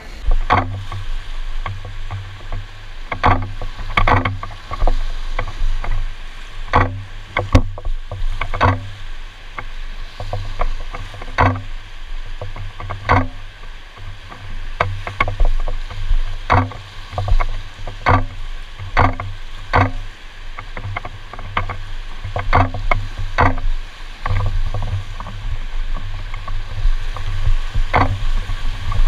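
Inflatable kayak running whitewater rapids: a steady rush and low rumble of churning water, with sharp slaps and knocks every second or so as water and paddle strokes hit the boat.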